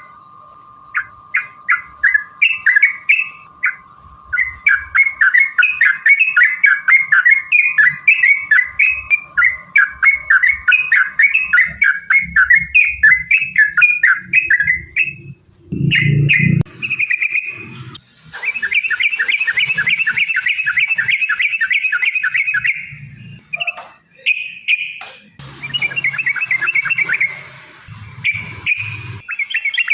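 Yellow-vented bulbul singing long runs of fast, bubbly chattering notes with brief pauses, the long rapid phrasing keepers call 'ropel panjang'. A faint steady tone runs under the song for the first part, and there is a low thump about halfway through.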